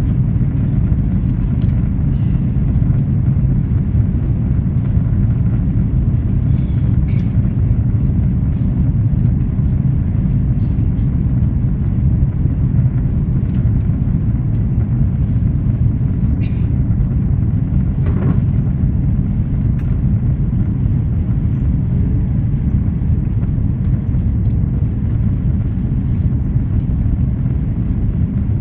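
Steady loud rumble of an airliner cabin on final approach: jet engines and rushing air, strongest in the low range, with no change in pitch.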